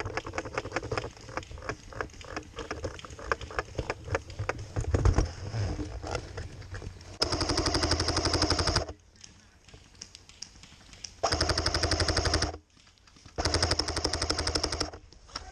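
Airsoft rifle firing on full auto in three bursts of about a second and a half each, the later two close together, after several seconds of scattered clicks and knocks.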